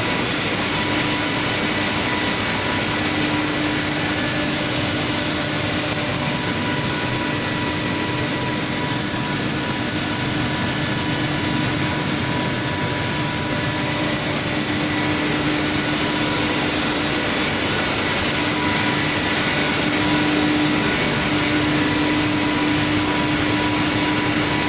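Industrial PCB recycling machinery running steadily, a continuous even noise with a steady hum and whine over it.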